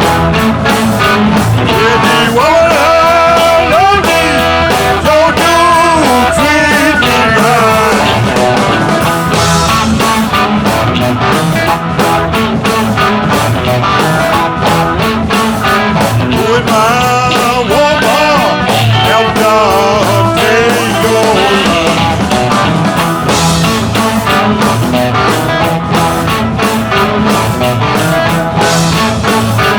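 Background rock music with electric guitar and a steady beat, with a voice singing.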